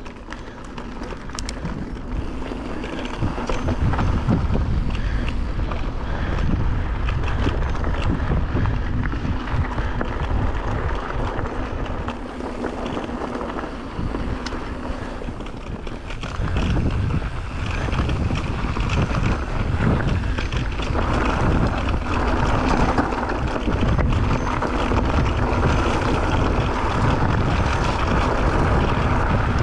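Wind buffeting the camera microphone and knobby tyres rolling over the dirt trail as a mountain bike descends at speed, with a few scattered clicks and rattles. The rush builds over the first few seconds, eases about halfway through, and then picks up again.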